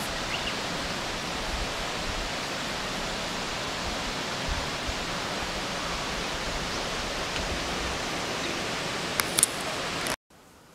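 Steady rushing of water far below a dam, an even hiss with two faint clicks near the end; it cuts off suddenly just before the end.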